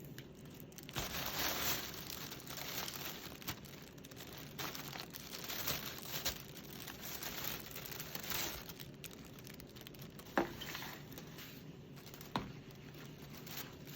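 Packaging crinkling and rustling as it is handled, with two sharp clicks about ten and twelve seconds in.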